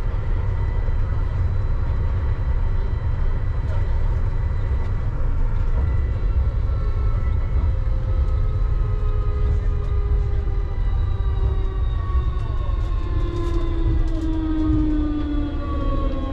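Uijeongbu Light Rail's rubber-tyred VAL car running on its guideway, heard from inside the car: a steady low running rumble. From about halfway through, the traction motors' whine glides steadily down in pitch as the train slows.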